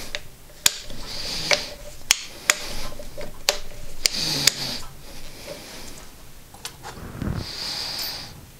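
Kwik-Way cylinder boring machine being worked by hand as the boring bar is raised: sharp metallic clicks and clunks from the crank and handwheel at irregular intervals, about a dozen in all, with a low thump about seven seconds in.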